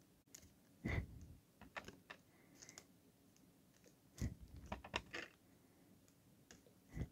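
Scattered light taps and clicks of craft supplies being handled on a tabletop, with a few louder soft knocks about a second in, around four seconds in and near the end.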